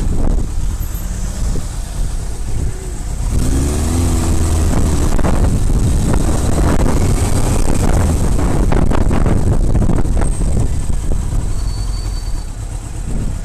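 Yamaha YZF600R Thundercat's inline-four engine, fitted with an aftermarket Pipeworks exhaust, running under way at low speed in traffic, under a heavy rumble of wind on the helmet-mounted microphone. The engine note rises briefly about four seconds in.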